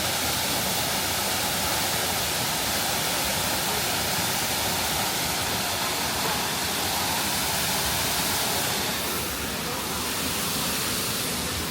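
Waterfall rushing steadily close by, a constant roar of falling water.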